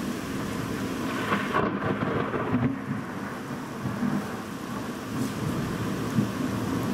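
Heavy rain falling steadily while thunder rumbles through it, loudest from about one to three seconds in and then rolling on in low, uneven swells.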